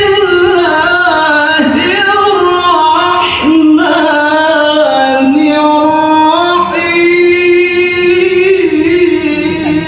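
A male qari's melodic Quran recitation (tilawah): one high-pitched voice drawing out long, ornamented notes into a hand-held microphone. There are two short breaks in the first few seconds, and one long steady note is held near the end.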